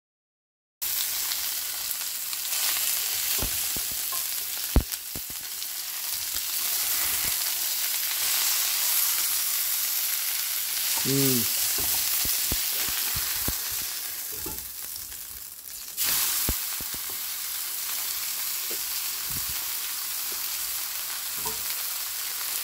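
Chuck roast steak searing in hot oil in a stainless frying pan: a steady sizzle that starts about a second in and jumps suddenly louder at around sixteen seconds. A wooden spatula moves the steak, with scattered knocks and scrapes against the pan; the loudest is a sharp knock about five seconds in.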